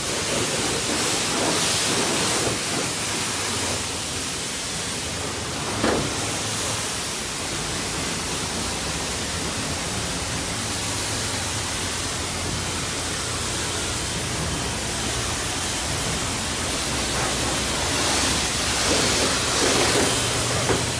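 Self-serve car wash high-pressure wand spraying water onto a car's body: a steady hiss of spray with water drumming on the sheet metal, and a single short knock about six seconds in.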